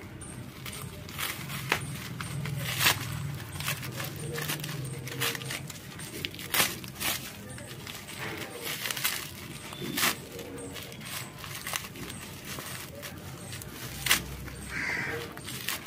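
Bubble wrap and thin plastic packaging being pulled apart and peeled off by hand, rustling with irregular sharp crackles, a few louder snaps among them.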